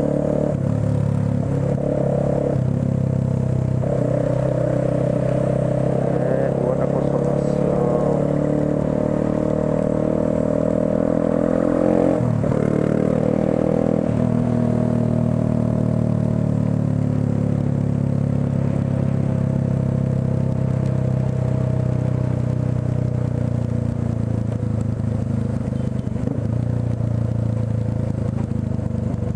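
Motorcycle engine running as the bike rides slowly through traffic. The engine note shifts in steps with changes of speed, with a quick drop and rise in pitch about twelve seconds in.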